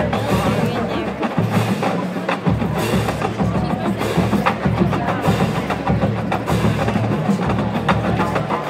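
Marching band drumline playing a percussion cadence: sharp rim clicks and drum hits over a dense low drum rumble.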